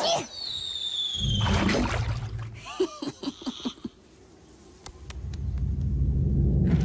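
Cartoon sound effects: a falling whistle in the first second, a low rumble, and a few short squeaky vocal sounds about three seconds in. A low rumble builds up again from about five seconds.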